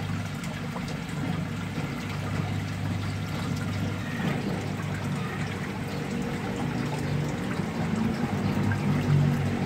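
Water trickling and pouring steadily into a shallow crab-fattening tub, over a steady low hum.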